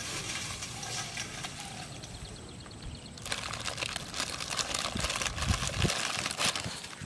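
A plastic biscuit packet crinkling and crackling as it is handled and torn open by hand. The crackles come in a dense run over the second half, with a few low thumps among them.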